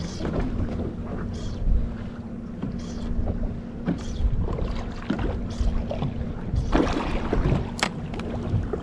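Wind buffeting the microphone and water slapping against the hull of a drifting boat at sea, with a faint steady hum underneath and several short splashes.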